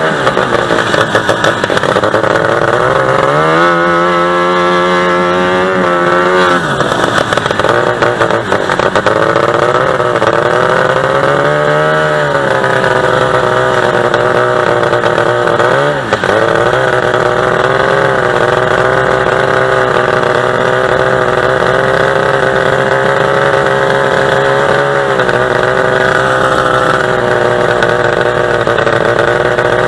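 45 hp two-stroke boat engine running at speed under way. Its pitch rises and holds higher a few seconds in, swells and falls again before the middle, and dips briefly about halfway through; otherwise it runs steady.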